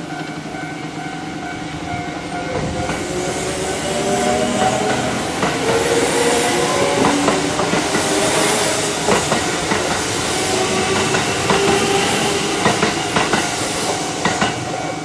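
Japanese level-crossing alarm bell ringing steadily while an electric commuter train passes the crossing. From about three seconds in, the train's motor whine and wheel noise build up and stay loud, with sharp wheel clicks over the rail joints near the end.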